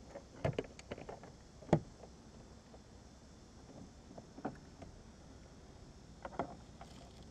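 Scattered light knocks and clicks of gear being handled against the plastic hull of a Hobie kayak. The sharpest knock comes just under two seconds in.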